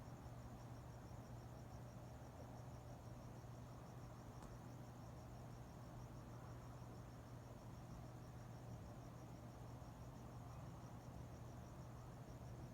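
Faint crickets chirping in an even, continuous pulse, over a steady low hum.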